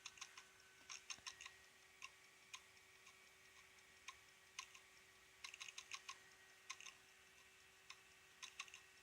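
Failing hard disk drive clicking and rattling faintly in irregular bursts of rapid ticks, with some single ticks between, over a steady hum. It is the sign of a dying drive struggling to read, with hardware ECC errors mounting and reallocated sectors climbing fast.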